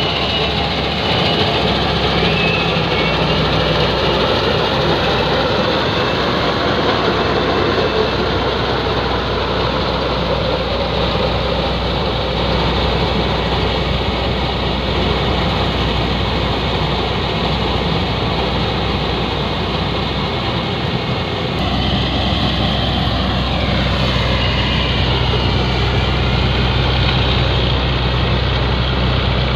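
Kuldeep 932 combine harvester's engine and threshing machinery running steadily while it cuts wheat, a loud continuous drone. About twenty-two seconds in the low hum grows stronger and a whine glides down in pitch.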